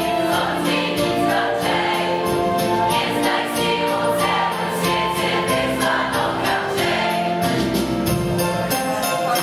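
A group of teenage voices, mostly girls, singing a Christmas carol together in sustained notes, over a steady, evenly spaced percussive beat of about three strokes a second.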